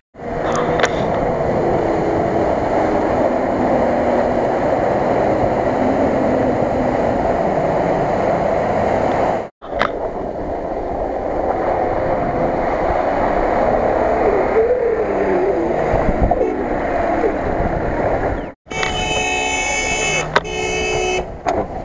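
Off-road 4x4 engine running hard under load, with a steady rush of wind and tyre noise, in three short clips split by sudden cuts. In the last clip a shrill, high-pitched tone sounds over the engine.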